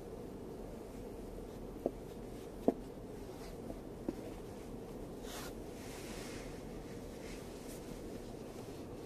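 Steady low hum inside the cabin of a Lexus RX 450h stopped in traffic, with three faint sharp ticks about two, three and four seconds in and a few soft hisses later on.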